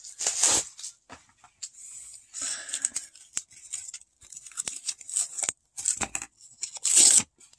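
Cardboard mailer being pulled open and a card in a taped plastic top loader handled: a run of irregular rustling, scraping and tearing with short pauses, loudest in a burst about seven seconds in.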